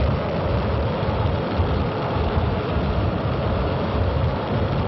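V-2 rocket's liquid-fuelled engine firing at lift-off: a loud, steady rushing rumble, heaviest in the low end.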